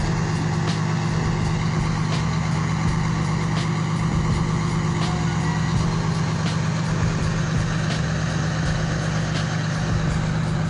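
A passenger train's diesel engine idling at the platform, a steady low drone.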